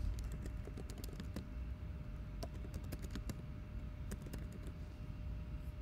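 Typing on a computer keyboard: a run of light, irregular key clicks over a low steady background hum.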